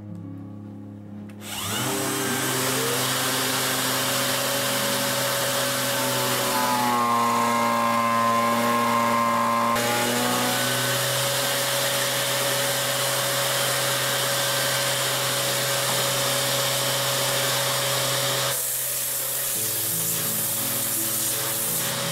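Electric sander fixed in a jig, with its dust extraction, starts up about a second and a half in with a rising whine, then runs steadily while wood cross-section samples are sanded flat against its 400-grit abrasive disc.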